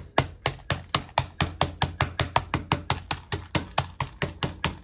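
Small Cinnamoroll scissors snipping rapidly and steadily, about four to five sharp clicks a second, cutting up the pink packing inside a plastic blind-box case.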